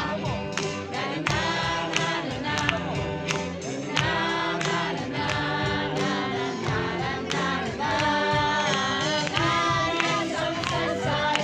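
A crowd of young men and women singing together loudly over music with a steady beat.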